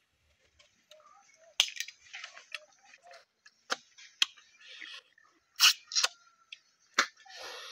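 Close-up eating of cooked snails by hand: a series of sharp clicks from shells and lips, mixed with short sucking slurps as the snail meat is drawn out of the shell.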